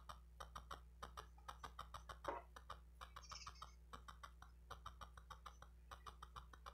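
Faint, rapid little clicks and ticks of fingers working at the tip of a diamond painting pen, picking the old pink wax out of it.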